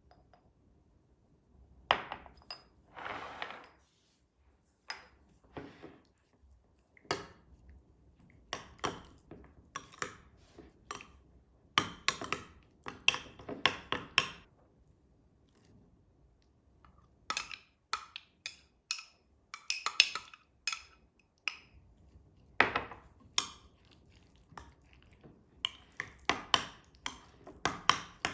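Dishes, glassware and cutlery clinking and knocking in irregular, separate taps.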